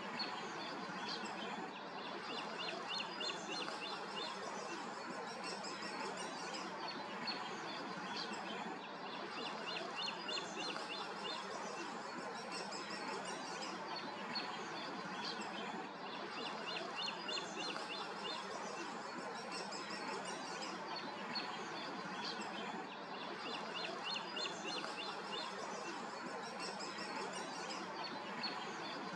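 A songbird singing a short, fast-repeated phrase of high notes four times, about seven seconds apart, over a steady outdoor background hiss.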